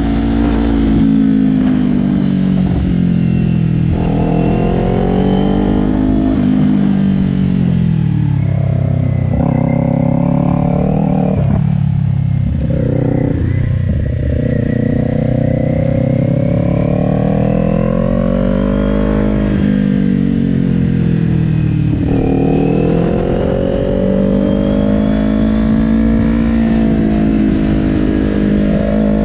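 Kawasaki Ninja 400's parallel-twin engine at speed, its pitch climbing as the throttle is opened and dropping at each gear change and corner entry, several times over.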